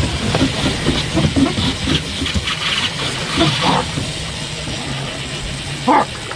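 Aboard a boat at sea: a steady low engine hum under a constant hiss of wind and water, with a few brief splashes.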